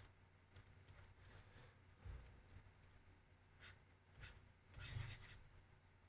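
Near silence: room tone with a faint low hum, a few faint clicks, and a soft rustle about five seconds in.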